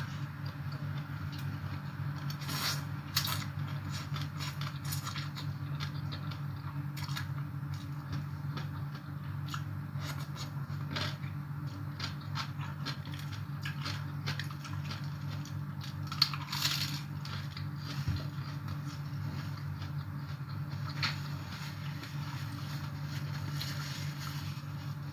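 Close-up eating sounds: chewing and crunching of papaya salad, with scattered short clicks and crunches, the loudest cluster about two-thirds of the way through. A steady low hum runs underneath.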